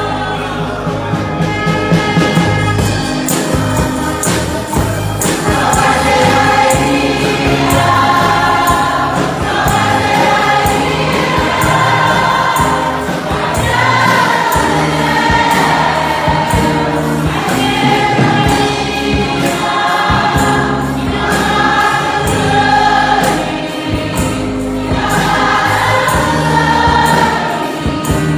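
Church choir singing a gospel hymn with instrumental backing and a steady beat.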